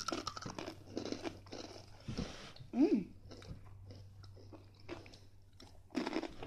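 Takis rolled corn tortilla chips being bitten and chewed: a run of irregular crisp crunches. A brief voiced sound that rises and falls in pitch comes about three seconds in.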